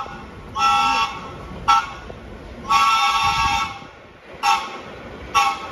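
An approaching vintage subway train sounding its horn in a run of blasts, a high chord of several tones. There is a half-second blast, a short toot, a blast of about a second, then two short toots.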